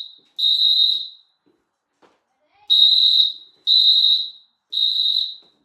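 Fire alarm sounding the temporal-three evacuation pattern: a high, steady beep repeated three times about a second apart, then a pause of about a second and a half, then three more beeps.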